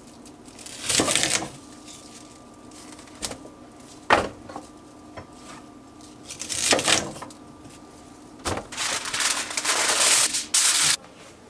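Chef's knife cutting through a bundle of asparagus on a wooden cutting board: a few separate scraping cuts, one with a sharp knock of the blade on the board. Near the end, aluminium foil is pulled from its box with a longer crinkling rustle.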